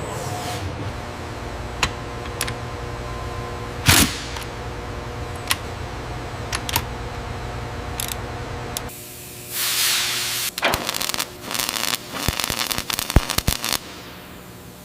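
Workshop machinery humming steadily, with scattered sharp metallic clicks and a loud knock about four seconds in. About nine seconds in the hum drops away, a short hiss follows, then a quick run of clicks and clanks.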